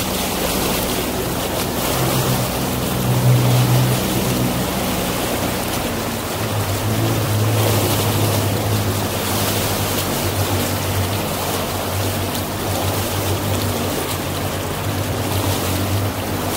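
Boat motor running steadily under way, with a constant rush of water and wind noise; the motor's low hum shifts slightly lower in pitch about six seconds in.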